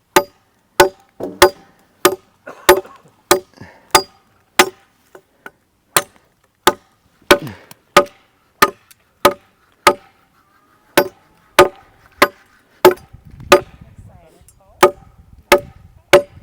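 Machete chopping into wood: steady, evenly paced blows about one every two-thirds of a second, each with a brief ring, with one short pause about two-thirds of the way through.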